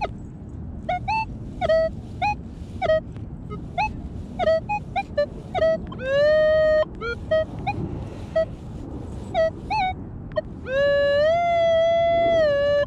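Minelab Equinox metal detector sounding target tones as the coil sweeps the grass: short beeps about two a second, then a held tone under a second long. About ten seconds in comes a longer held tone of about two seconds that rises in pitch at its start, the detector's response to a solid target.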